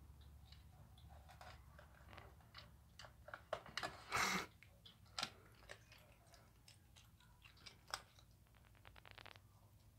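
A cat pawing inside the plastic chute and bowl of an automatic pet feeder, trying to reach stuck kibble: irregular clicks and scrapes on plastic, with a louder scraping rattle about four seconds in and a quick run of light ticks near the end.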